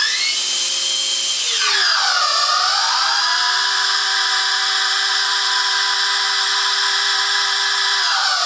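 Vacuum cleaner running at a low setting with ten rubber squeaky chicken heads taped to it, the air through them making a chorus of shrill squealing tones over the motor's hiss. The pitches swoop down and back up about two seconds in, hold steady, then drop away as it switches off near the end.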